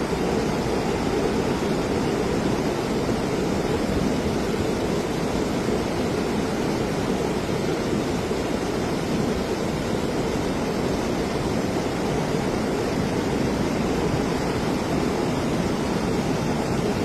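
Steady rushing of a rain-swollen torrent of water, an even noise without pauses or changes.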